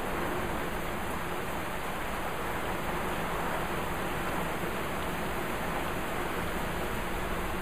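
Heavy rain falling steadily, an even, unbroken rush of downpour with no thunder or other events standing out.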